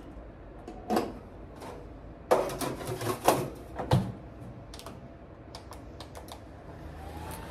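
Clicks and knocks as a Behmor home coffee roaster's drum is set in place and its door shut, followed by a few lighter clicks as its control-panel buttons are pressed to start the roast.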